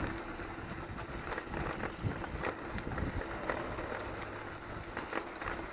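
Mountain bike rolling along a forest road: tyre noise with irregular small clicks and rattles, and wind on the microphone.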